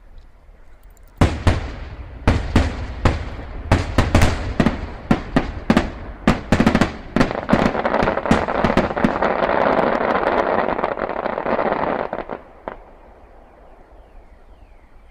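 Aerial fireworks bursting: about a second in, a rapid string of sharp bangs begins, one after another. They run into a dense, continuous crackling that dies away near the end.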